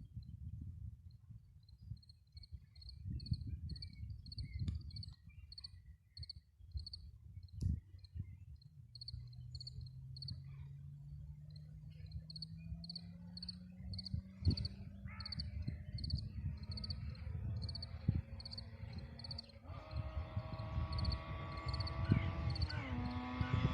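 Insects chirping in short, evenly repeated high chirps over a low gusty rumble. From about nine seconds in, a faint engine hum slowly rises in pitch, then turns fuller and louder near the end: the Yamaha RD 200 motorcycle's two-stroke twin running.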